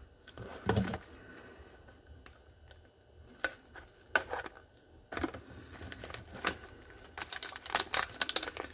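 A cardboard trading-card box being handled and opened by hand: scattered light clicks and scrapes of the cardboard, turning into a quick run of clicks and crinkles near the end.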